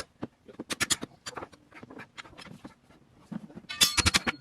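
Hand tools working a tractor tire bead against its rim: sharp clicks and scraping. Two quick dense flurries come about a second in and near the end, with scattered clicks between.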